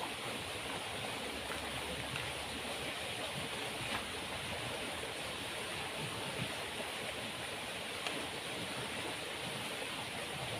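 Fast-flowing river water rushing steadily, with a few faint clicks.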